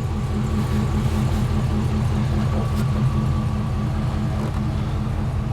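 An engine or motor-driven machine running steadily, with a fast, even low pulsing and a faint steady whine above it.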